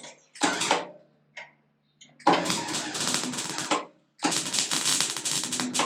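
MIG welder crackling as it lays weld on thin sheet steel in three bursts: a short one, then two of about a second and a half, with a faint steady hum between them. The bursts are short so the thin panel does not overheat.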